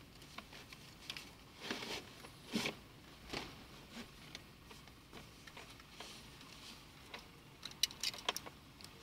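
Fabric harness straps and padding of a Humbi MXZ-EF child car seat rustling and scraping as they are pulled and adjusted, with a quick run of sharp clicks near the end as the harness buckle is worked.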